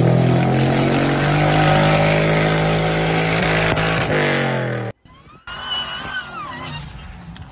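Off-road SUV engine revving hard and held at high revs while its tyres spin and churn through deep mud, cut off suddenly about five seconds in. A quieter vehicle sound follows, with a high whine sliding up and down.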